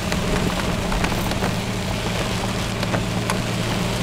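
Vehicle engine running steadily, heard from inside the cab, with rain falling on the vehicle and scattered drop ticks.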